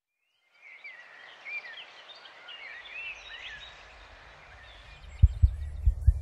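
Birds chirping and singing over a soft outdoor hiss. About five seconds in, a low hum starts with low thumps coming in pairs at a steady beat, and these thumps are the loudest sound.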